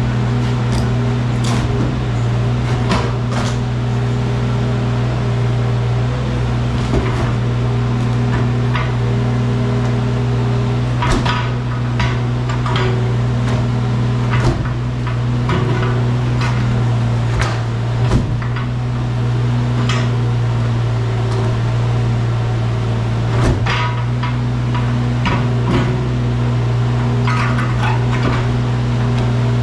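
Wacker Neuson mini excavator's diesel engine running steadily, with irregular knocks and clanks from the machine working.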